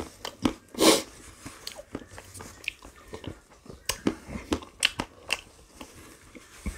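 A person eating ice cream close to the microphone: bites and chewing with crunching, heard as a string of short sharp clicks and crunches. The loudest bite comes about a second in.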